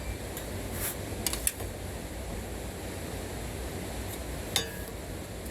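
A few light clicks and taps from a tape measure and pencil marking the doorknob height on a wooden door, over a steady low hum.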